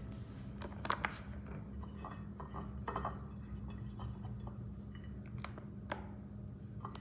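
Scattered light clicks and taps of fingers and nails against a ceramic plate and a clear plastic food box as grated mozzarella is scooped across by hand, over a faint steady low hum.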